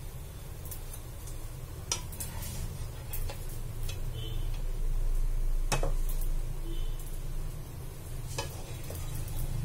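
Spatula scraping and tapping on a non-stick frying pan as half-cooked mini uttapams are lifted out, with a few sharp clinks, the loudest about six seconds in. A low steady hum runs underneath.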